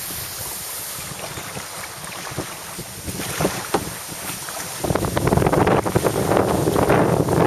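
Gusty wind buffeting the microphone, with scattered crackles. About five seconds in, the buffeting gets much louder and fuller.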